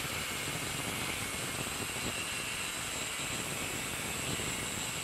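DeWalt angle grinder with a thin cut-off disc cutting through the steel shank of a rod end (rose joint): a steady grinding hiss with a high whine from the disc under load.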